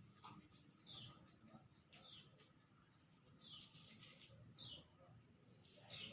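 Bird calling: faint, short high notes that slide down in pitch, repeated about once a second.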